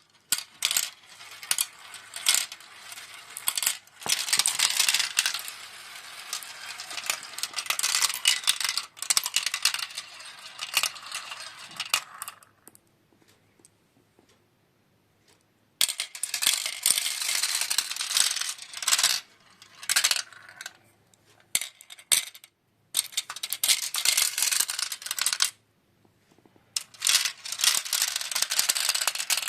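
Marbles rolling and clattering down the plastic tracks of a marble run, a dense rattling of many small clicks. It comes in several runs of a few seconds each, broken by short pauses, the longest about two seconds past the middle.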